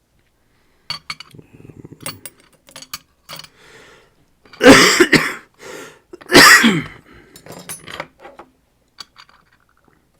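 Small metal lock parts (pins and components of the disassembled lock) clicking and clinking against each other and a hard surface in a run of quick taps. About halfway through there are two loud, short bursts, a second or so apart.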